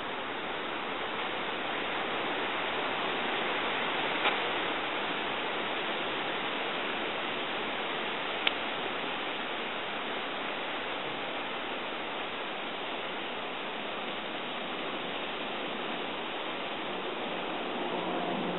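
Steady rushing hiss of wind through oak foliage, with two short faint clicks about four and eight seconds in.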